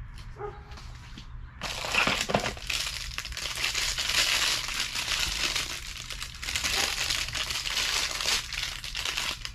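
Packing material crinkling and rustling as parts are handled and pulled out of a box, starting about one and a half seconds in and going on steadily.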